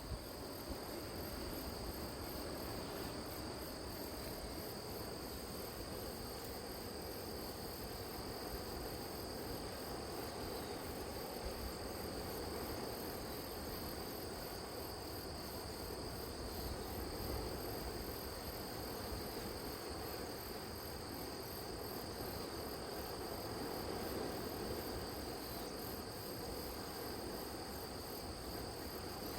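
Crickets and other grass insects singing steadily, with several high unbroken trills and a quickly pulsing chirp above them, over a low steady rush.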